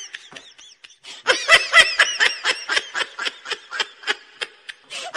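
A person laughing in a long run of quick, high-pitched bursts, about four a second, soft at first and getting louder after about a second.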